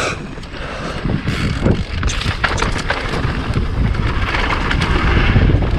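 Wind buffeting the microphone as a mountain bike rolls fast down a dirt trail, with tyre noise and repeated short clatters and knocks from the bike over rough ground.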